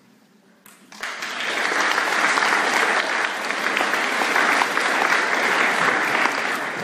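Audience applause breaking out about a second in after a brief hush and clapping steadily.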